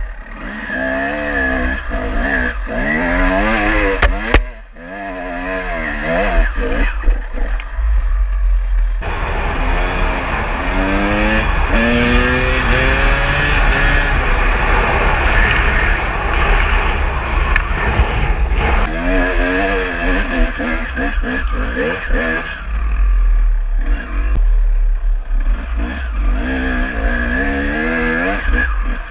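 KTM enduro motorcycle engine revving up and down as it is ridden, its pitch climbing and dropping repeatedly through the gears, with wind buffeting the microphone. A single sharp knock about four seconds in.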